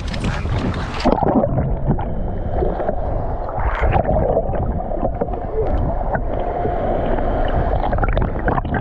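Water splashing for about the first second, then muffled sloshing and rumbling water heard from under the surface beside a boat hull, with a faint steady hum.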